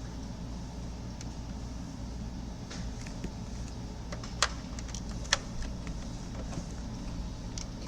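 Steady low hum under a few small clicks, with two sharp clicks about a second apart near the middle, as an HDMI tester and cables are handled and plugged into the connectors.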